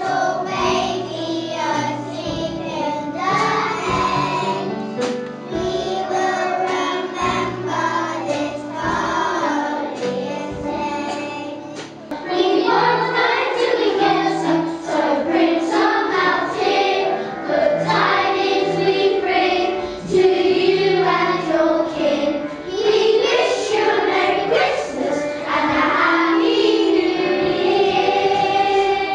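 A group of young schoolchildren singing a song together as a choir. The singing gets louder about twelve seconds in.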